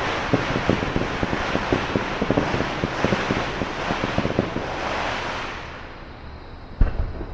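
Fireworks: a dense crackle of many small pops dies away about five and a half seconds in, then a single loud boom of a shell bursting near the end.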